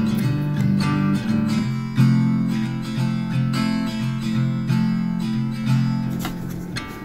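Background music: acoustic guitar playing chords in a gentle folk style, the notes changing every half second or so.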